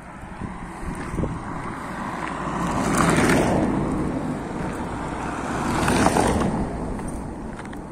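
Road traffic: cars passing close by on a roadside, tyre and engine noise swelling and fading, loudest about three seconds in and again about six seconds in as a car goes past.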